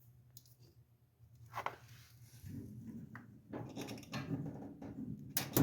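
Small dryer parts being handled: a triangular retaining clip worked onto a drum support roller shaft, with faint clicks and scraping and a sharper click near the end.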